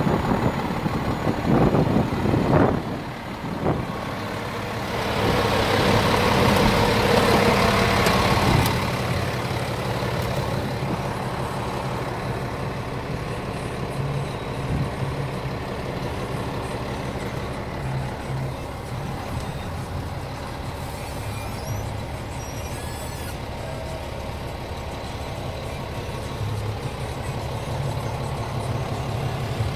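Scania R490 truck's diesel engine idling steadily. A loud rushing noise rises over it from about five to eight and a half seconds in, then the idle goes on quieter and more muffled, heard from inside the cab.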